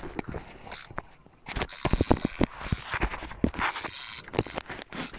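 Fast, irregular clicking and rattling of a fishing reel being worked during slow jigging, starting about a second and a half in.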